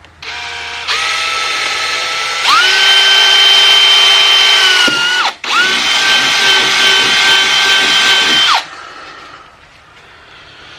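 Electric drill boring the wire hole through the back of a motorcycle tour pack. The motor whirs at low speed, steps up, then runs at full speed with a steady whine. It stops for a moment about halfway, starts again, and cuts off a couple of seconds before the end.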